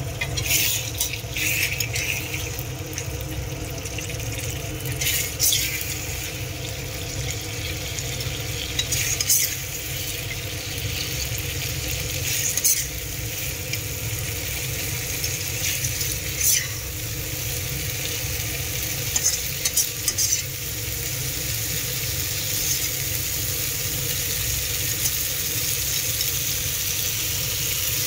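Paneer and masala sizzling in a kadhai as a metal spatula stirs and scrapes through it, with sharp clinks of the spatula against the pan every few seconds.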